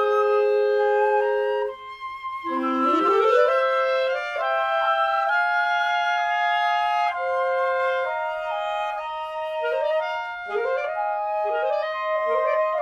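Woodwind trio of flute, clarinet and saxophone playing held chords. A low voice glides upward about two and a half seconds in, and short rising scoops come in the lower part near the end.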